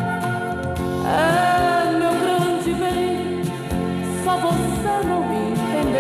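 Sertanejo-style song playing from a vinyl LP: a voice singing over instrumental backing, entering with a rising note about a second in.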